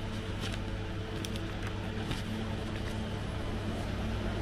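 Faint rustles and light ticks of paper banknotes being flipped through by hand, over a steady low hum.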